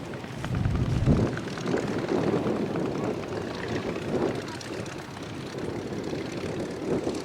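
Stampe SV4 biplane's piston engine and propeller running, with wind buffeting the microphone briefly about a second in.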